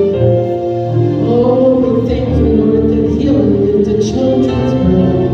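Gospel worship music: a group of voices singing held notes over sustained instrumental accompaniment.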